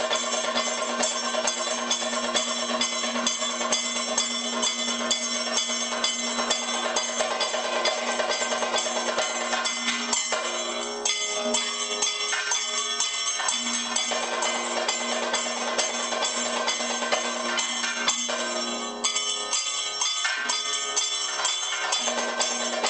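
Kathakali percussion: fast, dense drumming on chenda and maddalam with metal cymbals and gong ringing over a steady held tone. The beating thins out briefly twice, about halfway through and again near the end.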